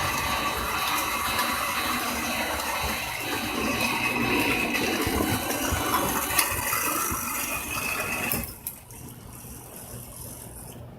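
O-gauge model train running along the track past a crossing: a steady mechanical rattle of wheels and motor gearing that drops away abruptly about eight and a half seconds in.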